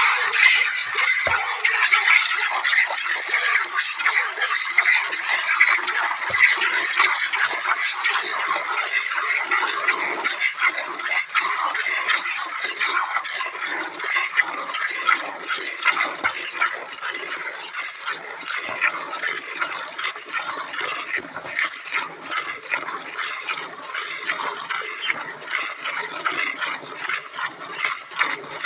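Hand milking a Holstein Friesian cow: quick, rhythmic squirts of milk hissing into a steel bucket, one stroke after another, getting a little quieter toward the end.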